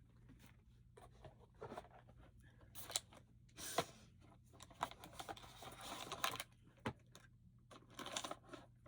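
Rummaging through a makeup bag: irregular rustling with scattered light clicks and knocks as small cosmetic items are handled.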